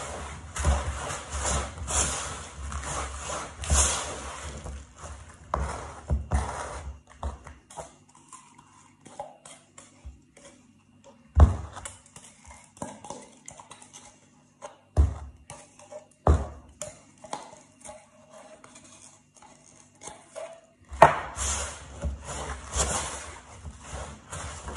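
Wooden spoon stirring a stiff crushed-biscuit and condensed-milk mixture in a plastic mixing bowl, scraping and knocking against the bowl. The stirring stops for a stretch in the middle, when there are three sharp knocks as the spoon scrapes condensed milk out of a tin. Stirring starts again near the end.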